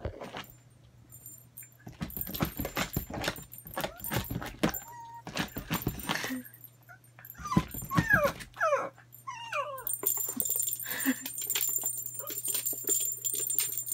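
A dog paws and scratches at cardboard, and about halfway through gives a run of short, high whines that rise and fall.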